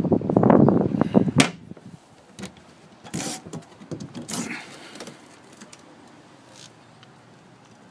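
Fibreglass boat hatch and compartment door being handled: a loud rubbing noise for the first second and a half that ends in a sharp click, then two short scraping sounds about three and four seconds in as the compartment door is swung open, followed by a few light clicks.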